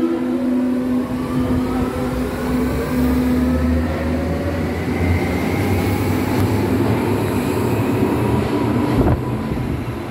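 Berlin U-Bahn class H97 train accelerating out of the station: its traction drive gives a whine of several tones rising steadily in pitch over the rumble of wheels on the rails. The sound changes abruptly about nine seconds in.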